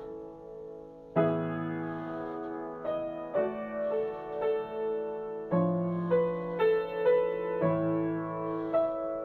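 Slow, gentle piano music: sustained chords struck about every two seconds under a moving melody.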